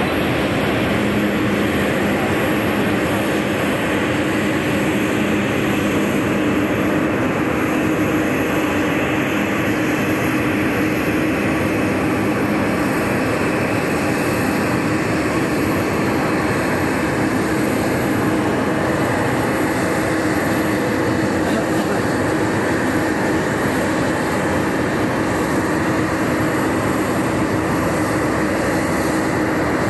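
Jet noise from an Embraer Praetor 600 business jet's twin Honeywell HTF7500E turbofans, heard from the ground as the jet flies a display. It is a steady, even rushing sound with a faint low hum, holding its level throughout.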